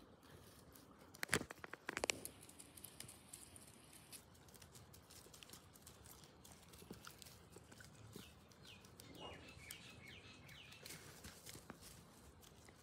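Groodle puppy crunching a raw carrot: a quick cluster of sharp crunches about a second in, then quieter scattered chewing clicks. Small birds chirp faintly near the end.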